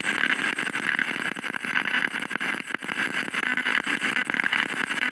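Handheld spirit box sweeping rapidly through radio frequencies, giving a steady, choppy stream of radio static from its small speaker.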